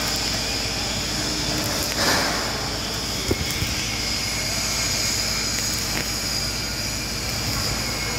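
Stick (shielded metal arc) welding arc burning on thin rectangular steel tubing, a steady hiss with a brief louder surge about two seconds in. The welder is melting a stripped electrode rod laid into a burn-through hole to close it.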